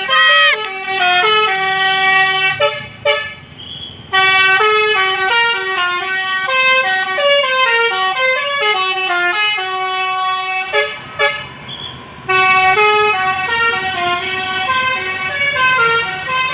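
Basuri musical bus horn playing a melody of stepped, held notes, with short breaks about three seconds in and again about eleven seconds in, over a low steady hum.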